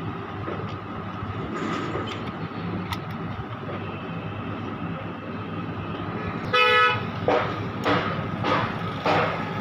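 A vehicle horn honks once briefly about two thirds of the way in, over a steady background of traffic noise, followed by a few shorter sudden sounds.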